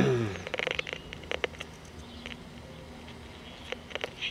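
Realistic solid-state AM/FM pocket radio being tuned on FM: static with a falling tone at the start, faint hum and scattered small clicks from the set being handled. It plays at low volume, a symptom usually, but not always, of dried-out electrolytic capacitors.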